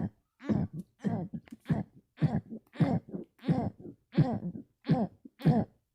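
A person burping over and over inside the mouth, short pitched burps coming a little under two a second, about ten in all.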